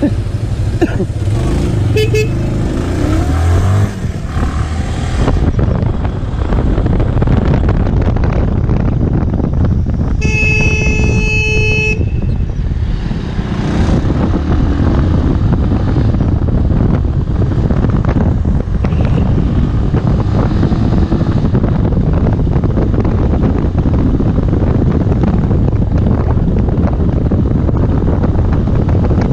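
Motorcycle riding in city traffic, its engine and the rush of the ride running throughout, with one vehicle horn sounding for under two seconds about ten seconds in.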